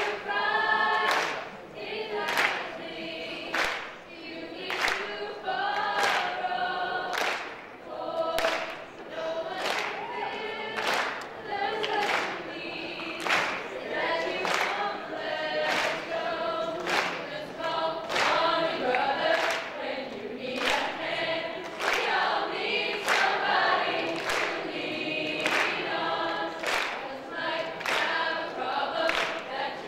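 A large group of voices singing together as a choir on stage, over a sharp, steady beat about twice a second.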